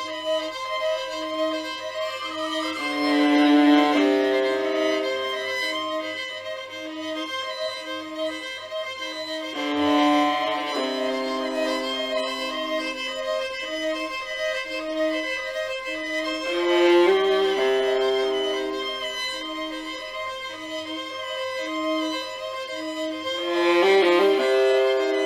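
Slow instrumental music in a bowed-string, violin-like sound: sustained chords under a short low note repeating about once a second, swelling louder about every seven seconds.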